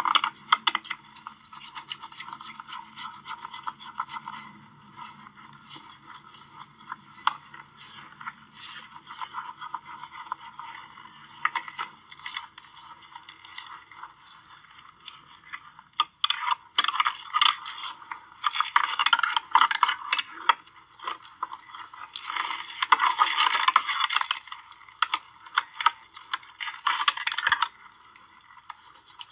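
White-tailed deer bucks jostling at a feeder trough right against the camera: scattered clicks and knocks with rough scraping. In the second half the scraping comes in several loud bursts a second or two long. The sound is thin and tinny, as it plays back through a computer's speaker.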